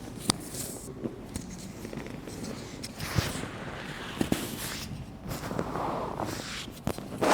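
Rustling and scattered soft knocks and clicks as a person turns over and settles onto her side on a padded chiropractic treatment table.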